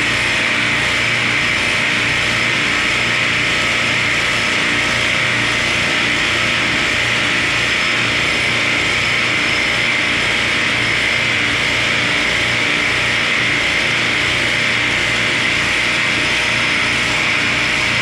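Ice plant machinery running: a steady, loud rushing noise that does not change.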